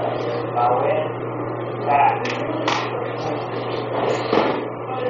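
Thuds and slaps of bodies hitting a padded mat during aikido throws and breakfalls: a couple of sharp impacts between two and three seconds in and another just after four seconds.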